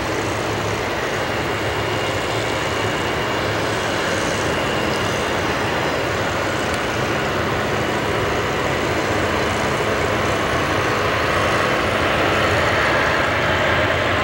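Jet airliner's twin engines at takeoff thrust during the takeoff roll: a steady rushing noise that grows gradually louder as the jet comes closer and lifts off near the end.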